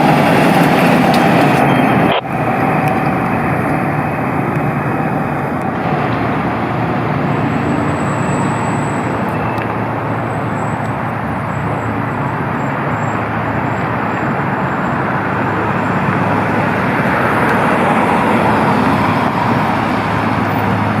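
Fire trucks driving by on the road: a steady, loud wash of heavy diesel engine and tyre noise, with a brief drop in level about two seconds in.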